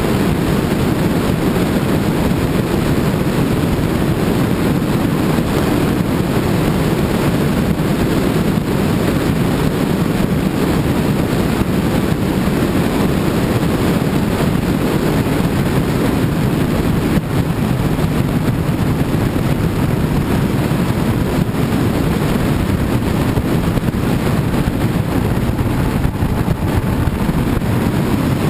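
Motorcycle riding at a steady cruising speed: a constant rush of wind on the microphone mixed with engine and road noise.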